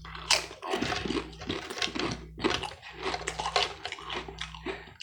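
A person chewing a mouthful of food close to the microphone, a rapid, irregular run of clicks and mouth noises.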